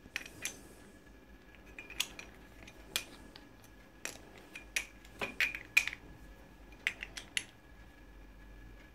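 Faint, irregular metal clicks and clinks from a Honda GV100 carburettor being handled as its float bowl is fitted and the bowl bolt turned by hand. The clicks come a few at a time, most thickly in the second half.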